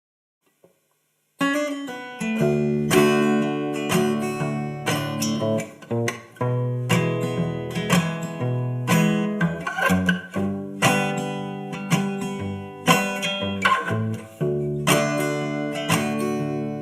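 Acoustic guitar intro of the song, fingerpicked notes in a steady rhythm, starting about a second and a half in after near silence.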